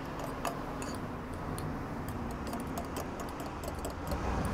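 Spoon stirring sauce in a small ceramic bowl, clicking irregularly against the bowl's sides. A low rumble comes up near the end.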